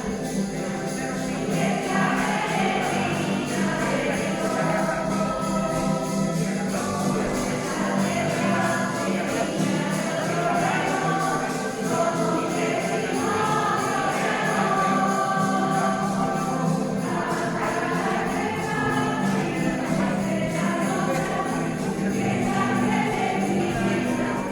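Music: a choir singing with jingling percussion like a tambourine.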